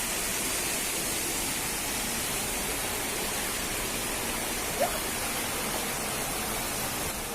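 Waterfall rushing steadily, an even wash of falling-water noise. A brief short sound with a quick rise in pitch stands out about five seconds in.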